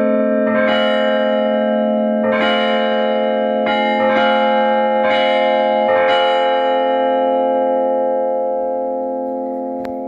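Monastery church bells ringing: several bells struck in an uneven pattern over the steady hum of a large bell. The last strikes come about six seconds in, and the bells then ring on, slowly fading.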